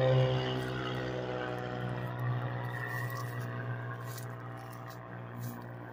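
Cirrus SR22-G6 single-engine propeller plane climbing out after takeoff, its six-cylinder piston engine and propeller running at takeoff power. The drone drops slightly in pitch early on and fades steadily as the plane flies away.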